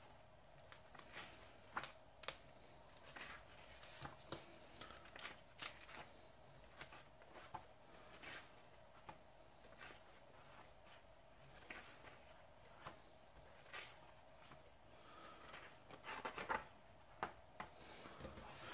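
Glossy pages of a thick hardcover comic omnibus being turned by hand: faint, irregular rustles and flicks of paper, busier near the end, over a faint steady hum.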